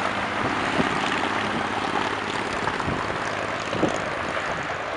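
Four GEnx-2B jet engines of a Boeing 747-8 on final approach, heard from afar as a steady rushing noise, with wind buffeting the microphone in a few short thumps.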